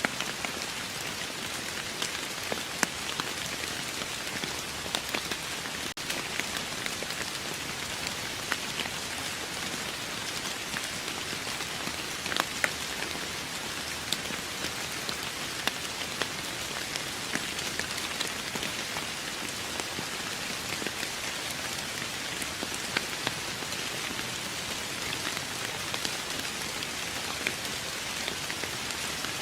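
Steady rain falling on a surface, an even hiss with many distinct drop ticks scattered through it.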